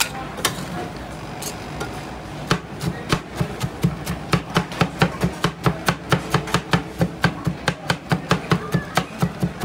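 Two steel spatulas chopping Oreo cookies into cream on the frozen steel pan of a rolled-ice-cream plate: sharp clacks of steel blade on steel pan. The strokes are scattered at first, then from a few seconds in settle into a fast, even chopping of about five strikes a second.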